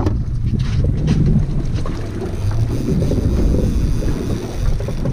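Wind buffeting the microphone on an open boat: a steady low rumble.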